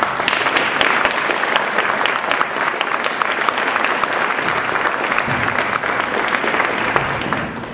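Audience applauding, many hands clapping at once; the applause starts abruptly and dies away near the end.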